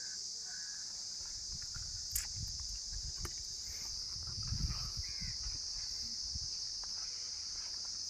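Steady high-pitched drone of an insect chorus, with a few faint bird chirps and soft low thuds over it.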